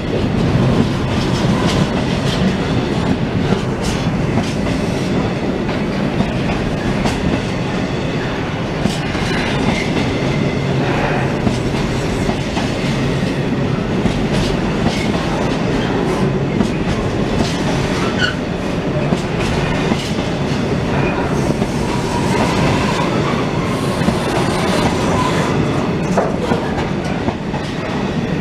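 Container wagons of a freight train rolling past close by, their wheels clattering steadily over the rail joints, with a few brief squeals.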